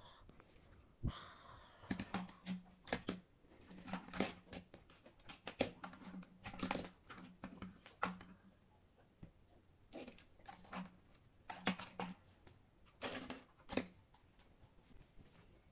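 Plastic toy airplanes and a toy helicopter being handled and set down on a tabletop: irregular clicks, taps and knocks of hard plastic, with a quieter gap about two-thirds of the way through.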